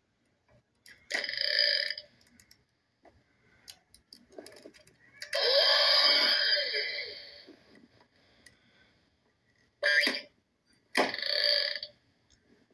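Burp-like croaking noises, four of them: a short one about a second in, a longer drawn-out one of about two seconds in the middle, and two short ones close together near the end.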